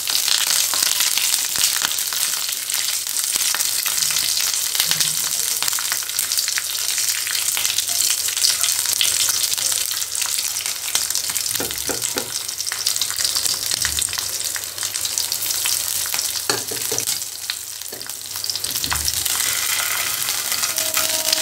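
Green chillies and curry leaves sizzling in hot oil in a nonstick frying pan as a tempering, stirred with a silicone spatula, with scattered small crackles and scrapes over a steady hiss.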